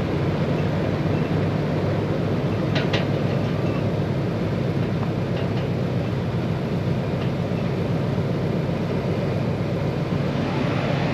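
A vehicle engine running steadily, a low even hum at constant level, with a couple of faint clicks about three seconds in.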